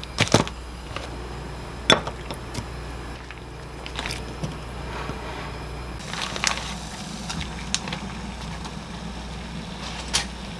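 A saucepan of water heating on a lit gas stove burner, with a steady low hum, and a few sharp clicks and knocks of kitchen handling spread through.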